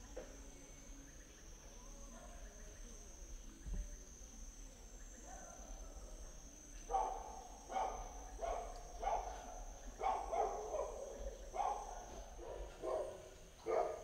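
Steady high-pitched drone of insects, joined about halfway through by an animal giving a run of short, loud calls, roughly one a second.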